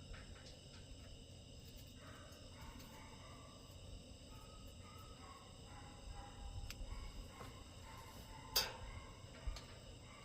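Steady high chirring of crickets, with a single sharp click or tap about eight and a half seconds in.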